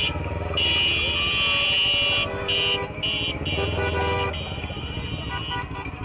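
Car horns honking in long held blasts over the low sound of idling and slow-moving engines, as in celebratory street honking. The honking drops away about four seconds in.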